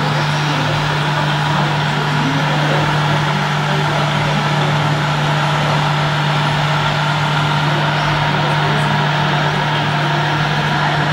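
Steady low drone of a radio-controlled model truck's engine-sound unit idling as the truck creeps along, over the even background noise of an indoor hall.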